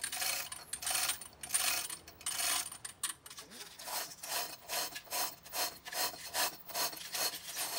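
One-ton manual chain hoist lifting a heavy boulder as its hand chain is pulled hand over hand. The chain links rattle and rasp through the hoist in a steady rhythm of about two strokes a second.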